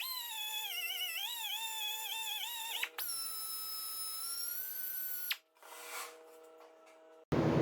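Die grinder whining as it cuts into aluminium, its pitch wavering under load, then running steadier and higher before stopping abruptly. Near the end a loud, even rushing noise starts suddenly.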